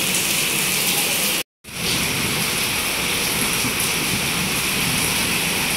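Rain falling steadily, an even hiss, broken by a brief silent gap about a second and a half in.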